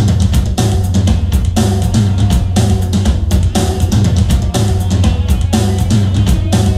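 Music with a steady drum-kit beat and heavy bass.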